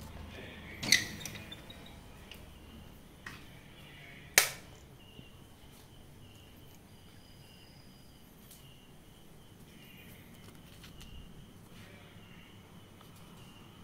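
Two sharp clicks about three and a half seconds apart, the second with a brief tail, followed by a few fainter ticks over a faint hiss.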